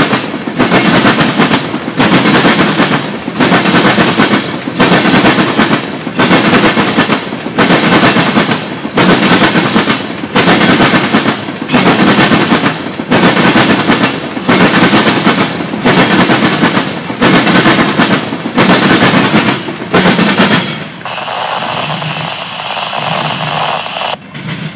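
Freight train of covered hopper cars passing close by, its wheels clattering loudly in a steady rhythm that surges about every second and a quarter. About 21 seconds in, the last car clears and the sound drops to a quieter rumble.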